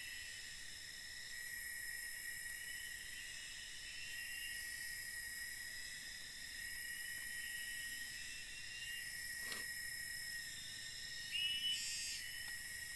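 Steady insect chorus in tropical forest: several high, shrill, continuous tones that swell and fade every few seconds. Near the end a metal spoon clinks briefly against an aluminium cooking pot with a short ring, the loudest sound; a faint tap comes a few seconds before it.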